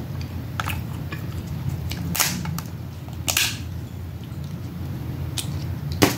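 Crab shells being cracked and snapped open: a light crack, two sharper cracks a second apart, and the loudest snap near the end, over a steady low hum.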